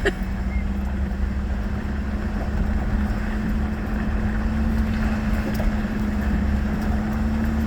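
Truck driving slowly on a gravel road, heard inside the cab: a steady low road-and-engine rumble with a steady hum.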